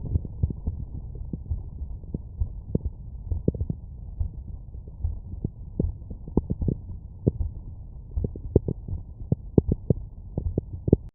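Normal heart sounds heard through a stethoscope: repeated lub-dub heartbeats over a steady low rumble, with sharper clicks at times.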